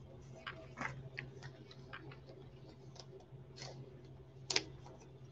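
Baseball trading cards and card packs being handled with gloved hands: faint, scattered rustles and light clicks, with one sharper click about four and a half seconds in.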